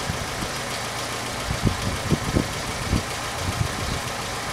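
Citroën DS engine idling just after starting, driving the high-pressure hydraulic pump that pressurises the self-levelling suspension before the car rises. A few irregular low thumps sound from about a second and a half in.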